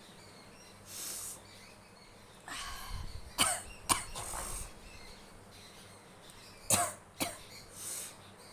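A woman forcing herself to sneeze. A sniff comes about a second in, then a drawn-in breath and two sharp sneezes about half a second apart, with another pair of sharp sneezes near seven seconds in.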